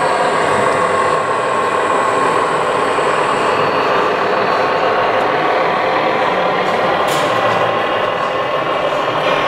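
Model trains running on a layout, a steady rolling hum. A thin high whine stops about a third of the way in, and there is a short click about seven seconds in.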